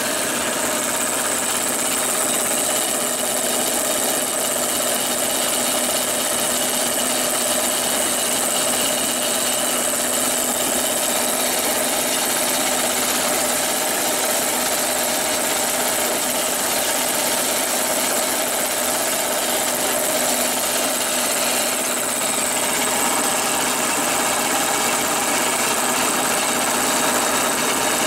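Electric-motor-driven high-pressure water pump unit running steadily, a constant mechanical drone with a high hiss over it.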